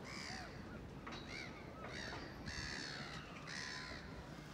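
A bird calling about five times in a row, the later two calls longer than the first ones.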